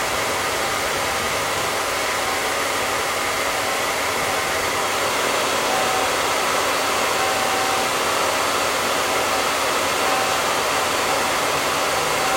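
Hair dryer blowing steadily: a continuous rush of air with a faint steady hum under it.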